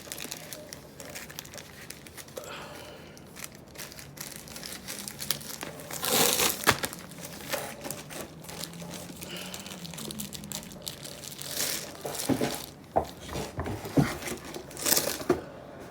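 Plastic packaging crinkling and rustling as it is handled, in irregular bursts, loudest about six seconds in, with sharper clicks and taps near the end.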